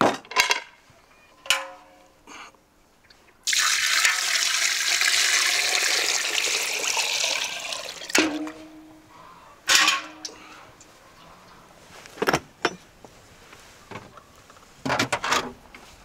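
Water poured from a bucket into a metal Afghan cauldron: a loud, steady rushing pour starts about three and a half seconds in and tails off after about four seconds. Sharp metal knocks and clanks come before and after it, some ringing briefly.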